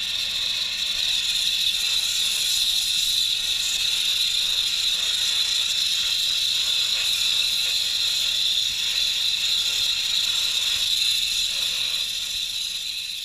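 Abrasive media blaster running continuously: a steady, loud hiss of compressed air and grit streaming from the nozzle onto a steel-tube aircraft fuselage frame.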